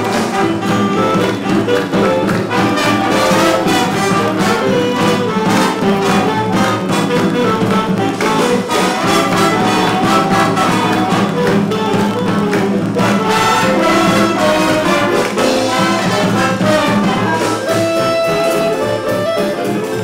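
Music with brass instruments leading, over a steady low accompaniment.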